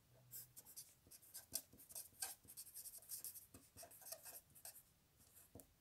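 Faint scratching of a marker pen's tip across paper as words are written, in a run of many quick short strokes, with one light tap near the end.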